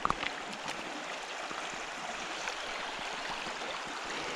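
Shallow river running over a stony bed: a steady rush of water, with a few faint clicks mixed in.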